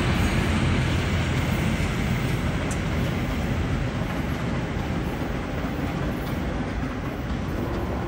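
Passenger coaches of a locomotive-hauled work train rolling past on the rails: a steady rumble of wheels on track that slowly fades.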